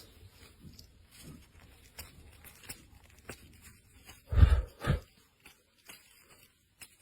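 Faint clicks and scraping of nail-care tools working on a nail, then two loud dull thumps about half a second apart, a little over four seconds in.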